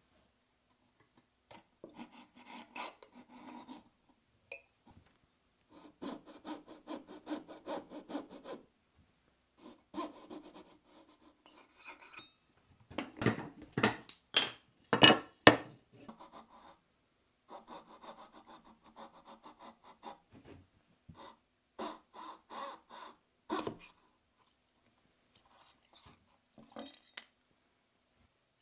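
Fine-toothed hand saw cutting wood in short runs of quick rasping strokes, stopping and starting several times. About halfway through comes a run of louder, sharper strokes or knocks.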